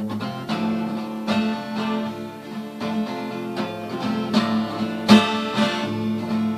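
Acoustic guitar strummed in a steady rhythm: the instrumental introduction before the song's first verse.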